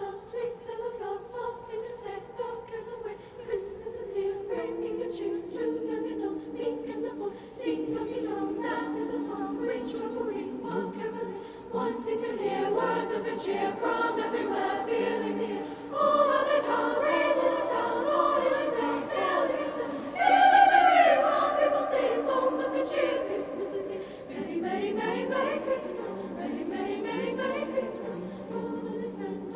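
Mixed high school choir singing in parts, growing louder about 16 seconds in and reaching its loudest about 20 seconds in.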